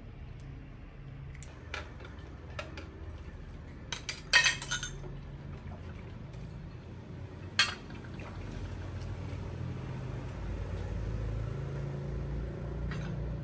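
Plastic washbasins clattering and knocking: a few light clicks, a loud cluster of clatter about four seconds in and a single sharp knock near eight seconds, then a steady hiss.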